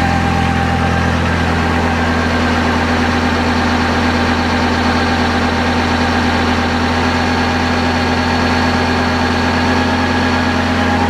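Kubota B7100 tractor's three-cylinder diesel engine running steadily, turning a NorthStar PTO generator that is loaded by battery chargers. The tractor's speed holds even throughout.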